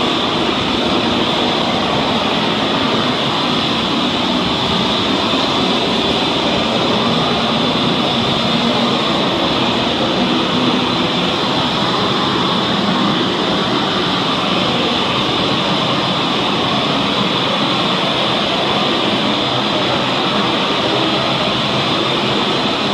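Hose-fed propane torch burning steadily: a constant rushing noise with no breaks or changes.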